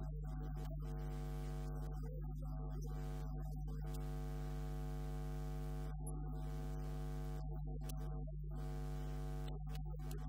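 Steady electrical mains hum, a constant buzz with many overtones that does not change in pitch or level; no speech is heard over it.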